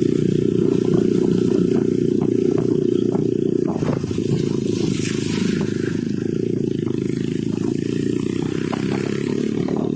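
A vehicle engine running steadily on the move, with scattered rattles and knocks over it and a short hiss about five seconds in.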